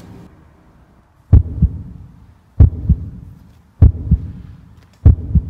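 Heartbeat sound effect: four slow double thumps (lub-dub), one about every second and a quarter, used as a dramatic suspense cue.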